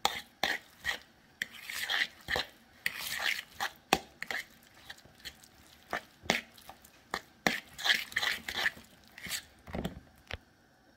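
Metal fork stirring a thick ricotta and crumbled sausage filling in a mixing bowl: irregular clicks and scrapes of the fork against the bowl, with a few longer scraping strokes.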